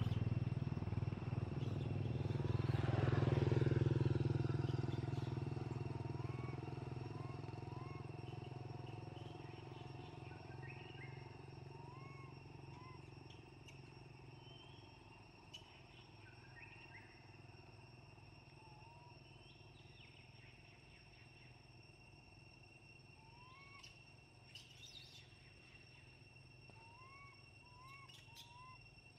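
A passing motor vehicle's engine rumbles, loudest about three to four seconds in, then slowly fades away. Short, high, rising squeaks come now and then through the rest, a young macaque's hungry crying, over a steady insect drone.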